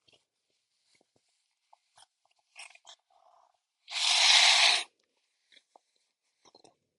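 A man sneezes once, a loud burst lasting about a second about four seconds in, after a few short, faint breathy sounds.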